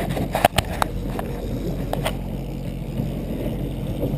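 Boat engine running steadily, with a few sharp knocks and clicks on deck, the loudest about half a second in.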